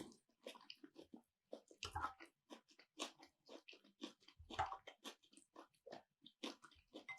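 A person chewing food close to the microphone: a quick series of soft, moist mouth clicks and smacks, with slightly louder bites about two seconds in and again just past the middle.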